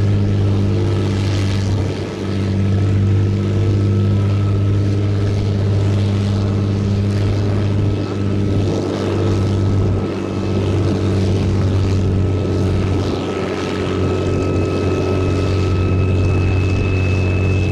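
MiG-15's jet engine running steadily: a constant deep hum with a thin high whine over it, and a second, higher whine joining about fourteen seconds in.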